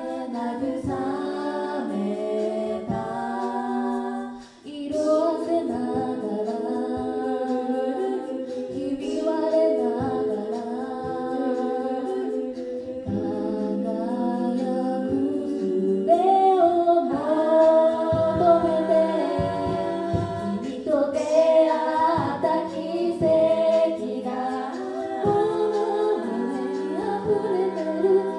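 Six-voice a cappella group singing a Japanese pop song through stage microphones, several voices in harmony over a low held bass part. The singing stops for a moment about four and a half seconds in, then carries on.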